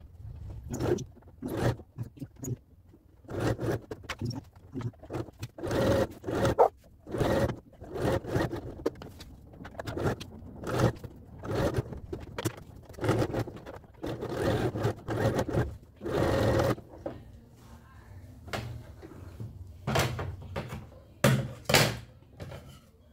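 Sewing machine stitching fabric in short runs, stopping and starting every second or so, with sharp clicks between the runs.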